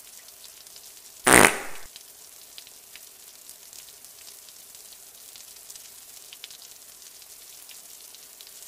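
A single short, noisy sound effect about a second in, lasting about half a second, followed by faint low hiss.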